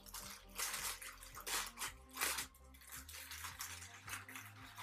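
Clear plastic packaging bag crinkling and rustling in irregular bursts as it is handled and opened.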